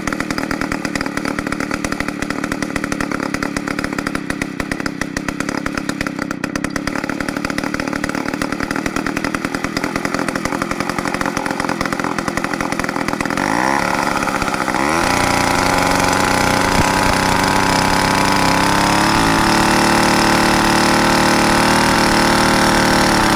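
100cc two-stroke chainsaw engine idling steadily. About 13 seconds in it is revved up, and from about 15 seconds it is held at high revs, louder and higher-pitched.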